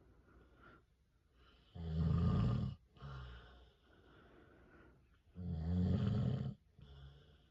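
A man snoring in his sleep: two loud snores about three and a half seconds apart, each lasting about a second and followed by a shorter, quieter breath.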